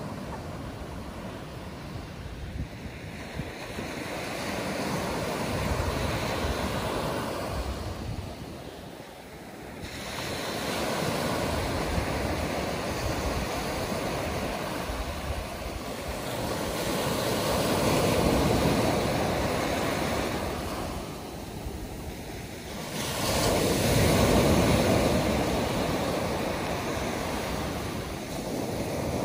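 Small Atlantic waves breaking and washing up a sandy beach, the surf swelling and falling back in long surges every several seconds, the loudest near the end.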